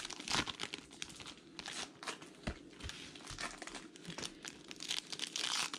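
Crinkling and tearing of the wrapping on a box and packs of baseball cards being torn open by hand, with a couple of soft taps about halfway through.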